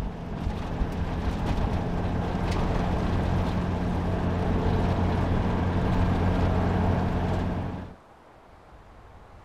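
Toyota Van driving at a steady cruise, heard from inside the cabin: an even engine hum under road and wind noise. The sound cuts off suddenly near the end, leaving only a faint hiss.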